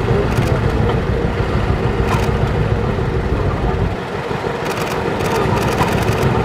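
Vintage John Deere two-cylinder tractor engine running at a slow idle, a low uneven chugging that eases briefly about four seconds in.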